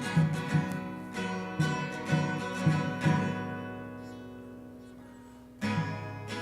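Acoustic guitar playing a folk song's instrumental passage: picked notes about twice a second, then a chord left to ring and fade for a couple of seconds before the playing picks up again.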